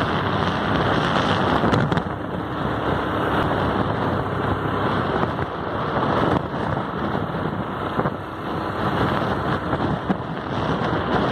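Wind buffeting the microphone: a loud rushing noise that rises and falls unevenly.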